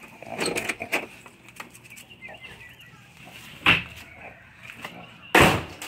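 Handling knocks and bumps: a cluster of knocks about half a second in, one sharp knock a little past halfway, and the loudest knock just before the end.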